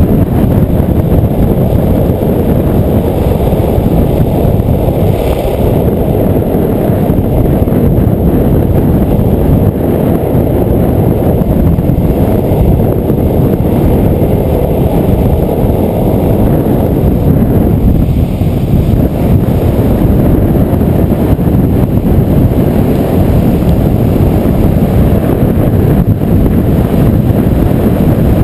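Wind rushing over a helmet-mounted camera's microphone at speed during a downhill skateboard run: a loud, steady low rumble.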